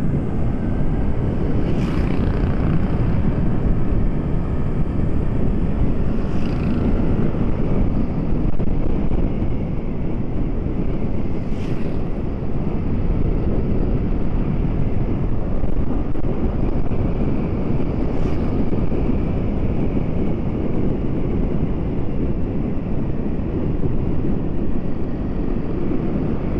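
Steady low rumble of wind and road noise from a vehicle driving along a paved road, with a few faint brief clicks about 2, 6, 12 and 18 seconds in.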